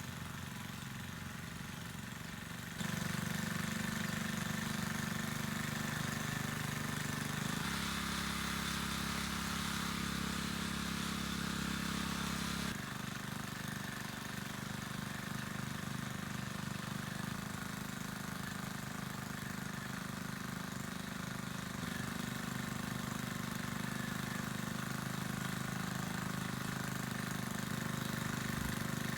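Small petrol engine of a garden tiller running while tilling soil. It steps up louder about three seconds in, and its note shifts between about eight and thirteen seconds as the load on it changes.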